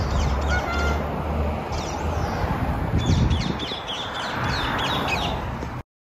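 Wild birds chirping and calling over a steady low rumble of street traffic and wind. The sound cuts off suddenly near the end.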